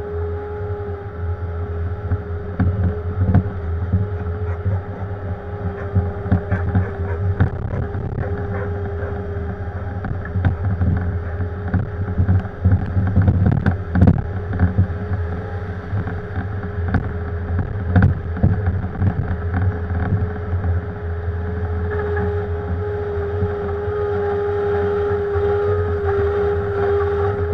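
Diesel engine of a Bobcat compact machine (skid steer or mini excavator) running steadily under load, with a steady high tone that grows stronger in the last few seconds. Scattered sharp knocks of the bucket working shale come through, the loudest about halfway through.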